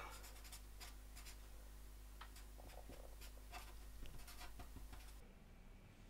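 Faint scratching of a pen drawing on paper in a series of light strokes, stopping about five seconds in.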